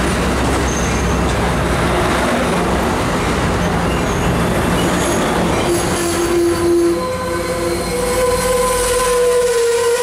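Amtrak Pacific Surfliner bilevel passenger cars rolling past close by with a steady rumble and clatter of wheels on rail. About six seconds in, a high, steady squeal starts up from the wheels and brakes as the arriving train slows for the station.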